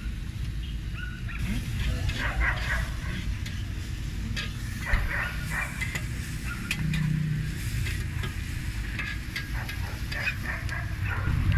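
Two metal spatulas scraping and clacking on a flat steel griddle as diced arrachera and chorizo are chopped and mixed, in quick irregular strokes, with the meat sizzling. A low steady rumble runs underneath.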